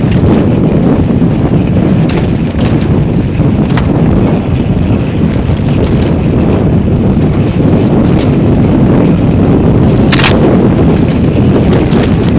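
Heavy wind buffeting on a helmet camera's microphone during a fast mountain-bike descent, with scattered sharp clacks and rattles of the bike over a rocky dirt trail; the sharpest clack comes about ten seconds in.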